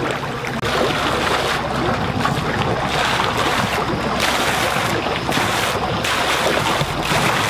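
Wind buffeting the microphone: a steady rushing noise with a low rumble that sets in about a second in.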